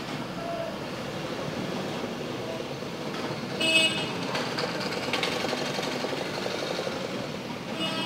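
Steady background traffic noise, with a vehicle horn tooting briefly about three and a half seconds in and again right at the end.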